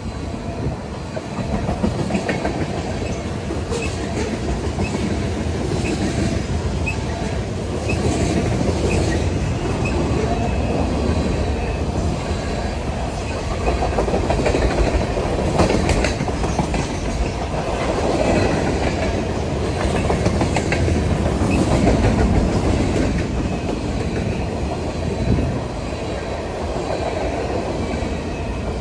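Freight cars of a BNSF train (tank cars, boxcars and covered hoppers) rolling past at speed. Steel wheels rumble steadily on the rails, with a running clickety-clack as the trucks pass over rail joints.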